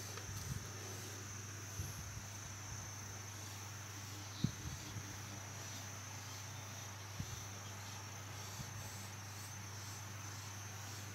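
Quiet background: a steady high-pitched whine with a faint pulse over a low hum, with a few light knocks, the clearest about four and a half seconds in.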